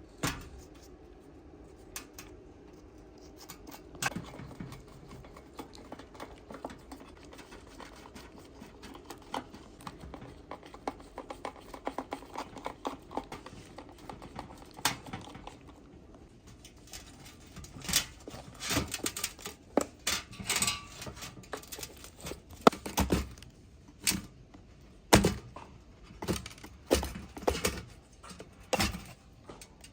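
Irregular clicks, taps and knocks of parts and hand tools being handled during restoration work, sparse at first and becoming louder and more frequent about halfway through.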